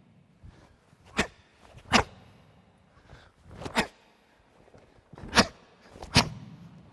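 Five sharp snaps of a karate uniform (gi) cracking with each block and strike of a karate kata, the third preceded by a short swish.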